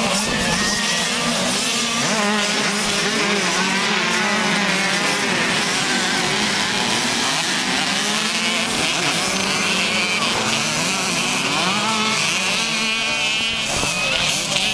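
Several motocross bikes' engines revving, their pitches rising and falling over one another as the bikes race around the track.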